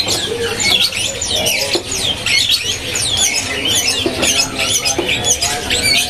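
Many caged small songbirds chirping and twittering at once: a dense, overlapping chorus of short, high calls.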